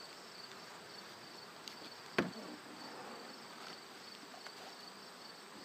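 Steady high-pitched chirring of crickets, with a single sharp knock about two seconds in.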